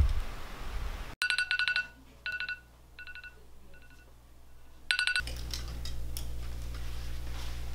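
Smartphone alarm going off: bursts of rapid high beeping that start suddenly about a second in and grow fainter, then one more loud burst near the five-second mark that is cut short. After it, a steady low hum with faint clicks of clothes hangers being moved.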